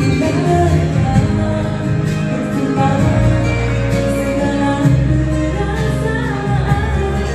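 Live amplified song: a woman singing with instrumental accompaniment, heard through PA speakers.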